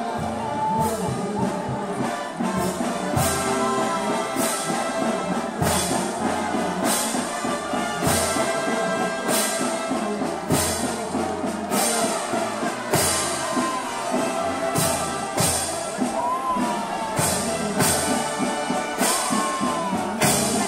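Brass band playing a slow processional march, with trumpets and trombones carrying the tune and a percussion stroke about once a second.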